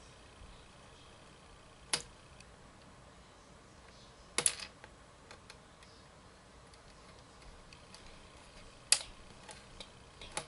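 A few sharp clicks of small plastic pieces from an Operation-style board game being handled: one about two seconds in, a quick double near the middle, and two more near the end.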